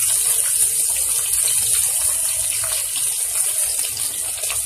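Fish sizzling in hot oil in a kadhai: a steady hiss with scattered small crackles.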